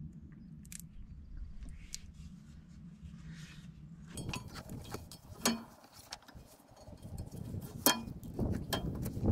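Hands working on a pumping unit's belt sheave and belts, with two sharp metallic clinks in the second half against a faint low hum.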